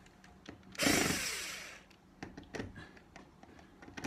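Cordless drill-driver runs for about a second, backing out a hinge screw from a UPVC window frame, its motor pitch falling as it stops. Small clicks and taps of the bit and screw follow.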